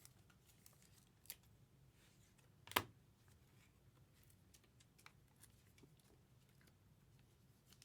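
Near silence with scattered faint clicks and taps of trading cards being handled, and one sharper click nearly three seconds in.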